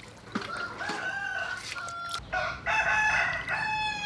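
A rooster crowing: one long crow broken into several parts, starting about half a second in.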